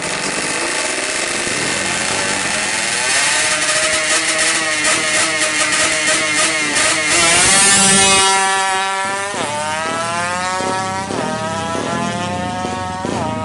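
Yamaha F1ZR 130 cc two-stroke drag-bike engine held at high revs at the start, then launching and accelerating hard, its pitch climbing and dropping sharply at each of several upshifts.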